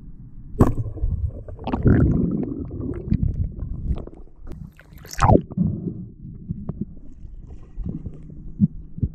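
Water sloshing and gurgling around a GoPro-type action camera in the water, with two sharp knocks, one about half a second in and one about five seconds in.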